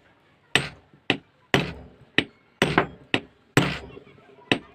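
Repeated sharp metal knocks, about nine irregular blows at roughly two a second, each with a short ring, as a stand fan motor's rotor is struck over a pipe to drive out its worn, grooved spindle shaft.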